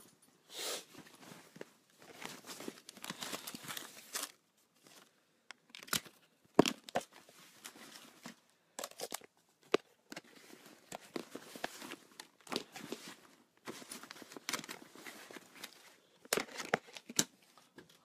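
Handling noise of a handheld phone: irregular rustling and scraping as its microphone rubs while it is carried, with scattered clicks and knocks.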